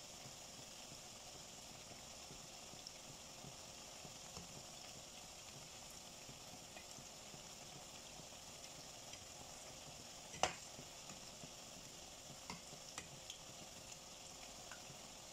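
Pumpkin ukoy (grated squash fritters) deep-frying in oil: a faint steady sizzle with small scattered pops. About ten seconds in, a single sharp clink of the metal slotted skimmer against the pot.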